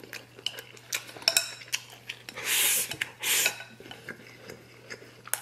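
Wooden chopsticks clicking against a ceramic rice bowl as rice is scooped and shovelled into the mouth. Two louder bursts of eating noise come a little past the middle.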